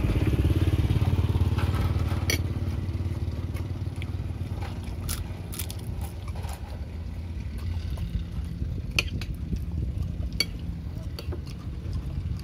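Spoons and forks clinking and scraping on china plates during a meal, a sharp click every second or two, over the low rumble of a motor engine that is loudest in the first couple of seconds and then eases off.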